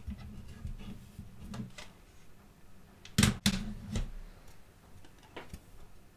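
Handling a CD and its plastic jewel case: soft handling noise and light knocks, with a quick pair of sharp plastic clicks about three seconds in and another a moment later.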